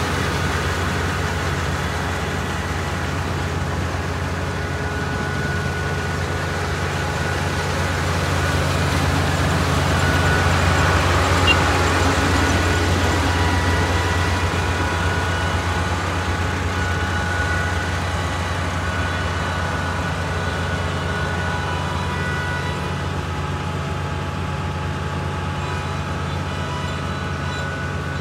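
Kubota ER448 four-row combine harvester running steadily: the hum of its 48-horsepower diesel engine with a whirr of machinery on top, growing slightly louder for a few seconds midway.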